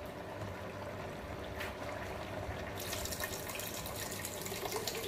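Water poured from a plastic pitcher into a stainless-steel pot of chicken pieces, a steady splashing pour starting about three seconds in: the water that will become the soup's broth. A low steady hum runs underneath.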